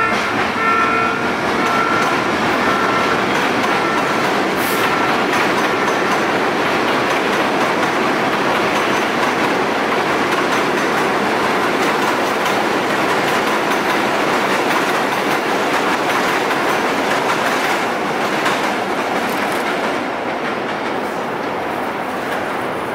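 R62A subway train running over a steel elevated viaduct: a loud, steady rumble of wheels on the rails that eases slightly near the end. The tail of the train's horn sounds in the first second or so and then fades away.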